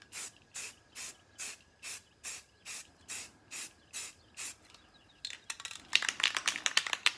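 Rust-Oleum 2X aerosol spray paint can hissing in short, evenly spaced spurts, a little over two a second, laying down a light coat. About five seconds in the spurts stop and a louder, rapid rattle of clicks follows, the can being shaken.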